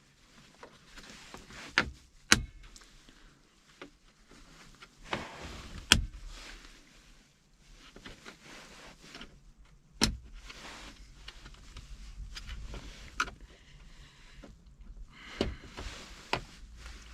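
Screwdriver prying at the plastic retaining tabs of a dash-mounted 4x4 switch: scraping and rubbing broken by several sharp plastic clicks as the tabs pop back into place.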